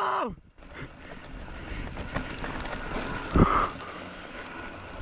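Wind rushing over the microphone and mountain bike tyres rolling on bare rock, growing louder as the bike gathers speed down a steep slab, with a heavy thump about three and a half seconds in.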